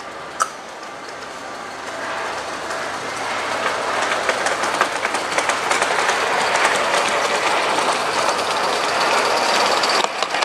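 A sharp click about half a second in, then a large-scale garden model train rolling along the track, its wheels making a fast, dense clicking over the rail joints that grows steadily louder as the train comes closer.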